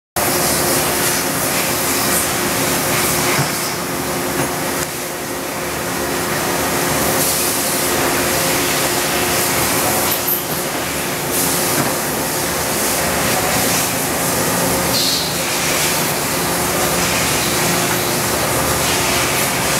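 OKK HM100S horizontal machining center running under CNC program: a steady mechanical hum with a couple of held tones under an even hiss, with brief swells of higher hiss now and then.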